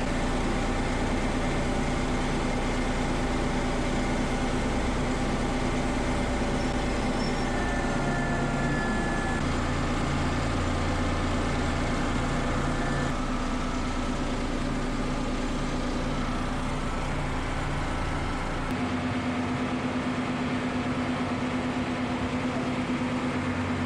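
Tractor engine running steadily while packing corn silage in a bunker, with a deep low rumble that drops away about nineteen seconds in.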